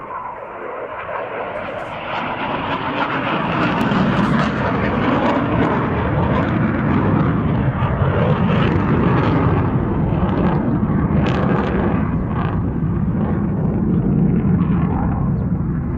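Military jet aircraft flying past, its engine a loud, steady rushing roar that swells over the first few seconds and then holds.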